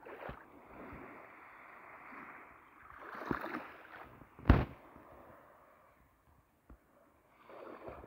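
Small waves lapping and washing up on a sandy beach on a calm sea, the wash swelling and fading. There is one sharp thump about halfway through.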